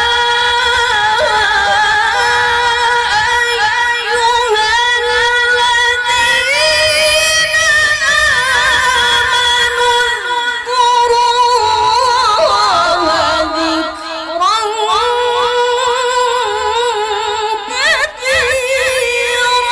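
A woman reciting the Qur'an in the melodic tilawah style, drawing out long, high, ornamented notes with wavering turns. About twelve seconds in, the melody sinks lower, then climbs back up to the higher pitch.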